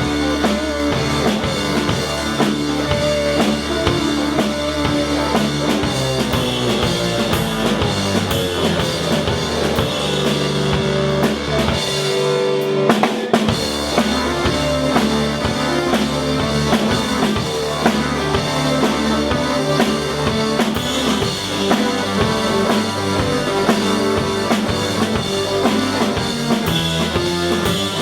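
Live band playing loudly, the drum kit prominent with kick, snare and rimshots driving a steady beat. The low end drops out briefly about halfway through before the full band comes back in.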